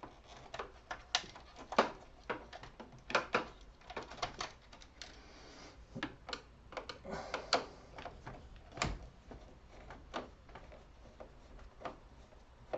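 Irregular plastic clicks and rattles of hands working a wiring connector loose and unplugging it from a Brother L8600CDW laser printer's fuser unit, with a sharper knock about nine seconds in.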